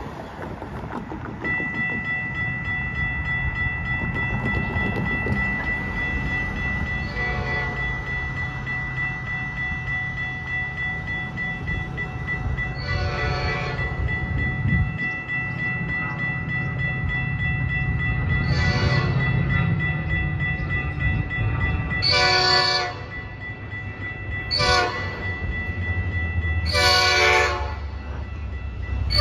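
A railroad crossing's warning bell starts ringing about a second and a half in as the signals activate, and keeps ringing. Over it, an approaching Metra diesel locomotive sounds its horn in blasts that grow louder, the last four in the long-long-short-long grade-crossing pattern, over a low rumble of the oncoming train.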